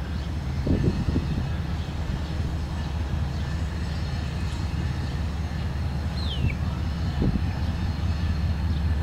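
Union Pacific diesel-electric locomotives running as they haul a freight train toward the listener: a steady low engine drone.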